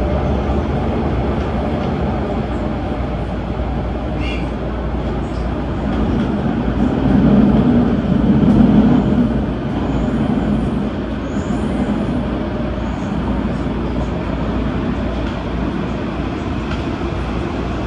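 Adtranz-CAF electric multiple unit of the MTR Tung Chung Line running along the line, heard from on board: a steady rumble of wheels and running gear that swells louder about seven to nine seconds in, with a brief high whine about four seconds in.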